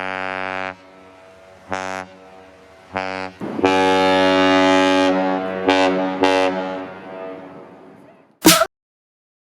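Kahlenberg S-120 ship horn sounding a series of deep blasts: one ending about a second in, two short blasts, then a long, loud blast that fades away slowly with short bursts over its tail. A brief sharp crackle near the end, then the sound cuts off.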